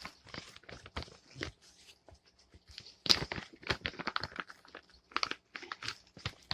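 Packaging being handled: irregular rustling and crinkling with short crackles, busiest a few seconds in.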